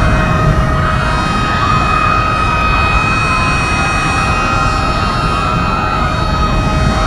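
Outdoor tornado warning siren holding a steady, slightly wavering tone, over a loud low rumbling noise.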